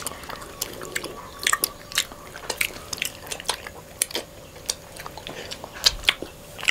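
Close-miked mouth sounds of eating honeycomb and mango popping boba: wet chewing with irregular sharp smacking clicks, several a second.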